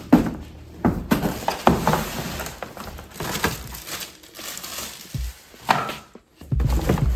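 Irregular knocks, clicks and crackles of packaging and hard parts being handled during unboxing.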